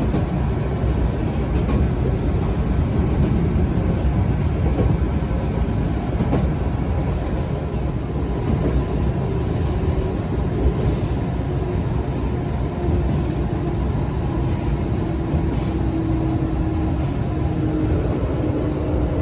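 Izukyu 2100 series resistance-controlled electric train running, heard from inside the car: a steady low rumble of wheels and running gear, with a faint whine in the second half and brief high squeaks.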